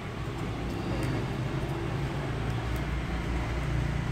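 Steady low rumble of background road traffic, with a few faint small clicks.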